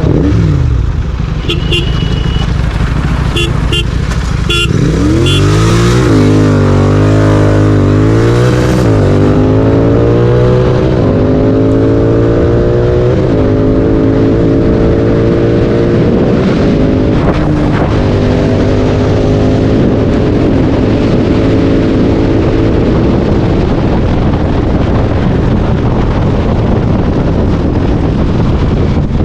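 Royal Enfield Continental GT 650's parallel-twin engine through a Red Rooster aftermarket exhaust, heard onboard. It drops to a low rumble, revs up sharply about five seconds in and pulls through several upshifts, the pitch climbing and stepping down at each shift, then settles into a steady cruise.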